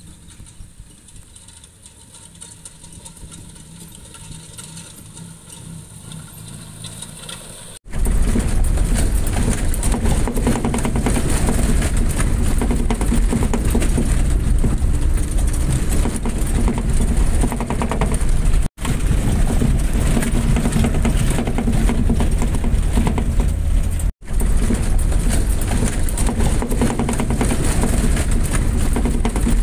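Off-road vehicle engine running, faint and steady at first. About eight seconds in it jumps to a loud, rough noise with a heavy low end, cut off briefly twice.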